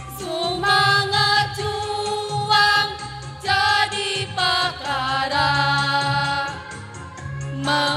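Women's choir singing held notes into microphones through a PA system, the pitch moving every second or so.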